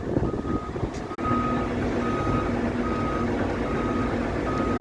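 Vehicle reversing alarm beeping steadily, a bit more than once a second, over the low running of a heavy diesel engine at a road-planing job.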